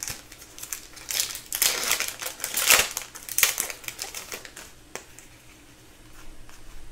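Foil wrapper of a hockey card pack being torn open and crinkled in the hands: a quick run of crackles and rustles that dies down about four seconds in, with one sharp click a second later.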